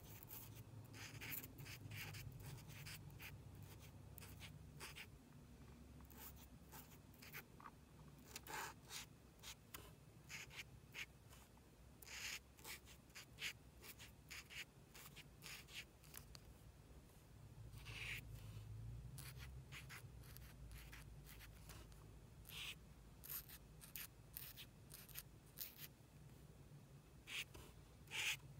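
Black marker drawing on a small card: faint, short, irregular scratches of the nib as each stroke is inked, over a faint low hum.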